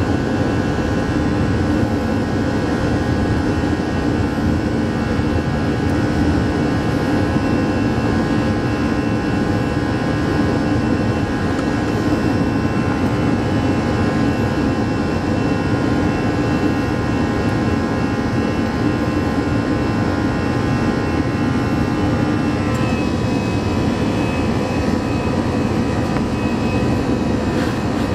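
Airbus A321-200 jet engines and airflow heard inside the cabin over the wing during the climb after takeoff: a loud, steady roar with a whine of several fixed tones. About three-quarters of the way through, the whining tones drop slightly in pitch.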